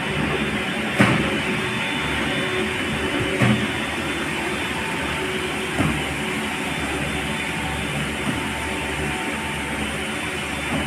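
Motor-driven truck-loading belt conveyor running steadily with a machine hum as it carries rubber tyres down the belt, with a light knock about every two and a half seconds.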